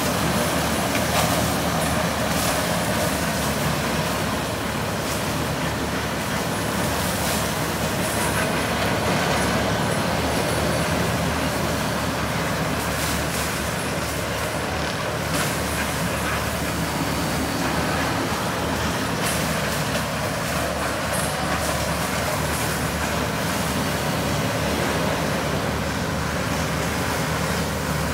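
100-horsepower Kubota tracked forest mulcher running steadily under load as its mulching head chews into brush and small trees, with a few sharp cracks scattered through the steady noise.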